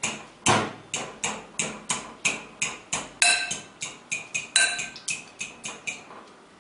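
A fork beating eggs in a bowl: quick, even clinks of the fork against the bowl's side, about three a second, each ringing briefly. They fade and stop shortly before the end.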